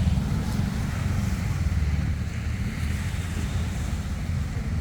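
Wind buffeting the microphone as a heavy, uneven low rumble, over a steady wash of surf noise.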